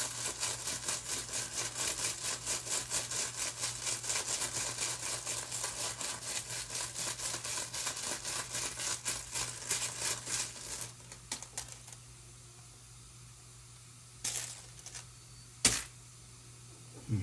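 Small rune tiles rattling in a cloth drawstring bag, shaken rhythmically at about five rattles a second for some eleven seconds. Then a couple of single clicks near the end as a rune is drawn out, over a steady low hum.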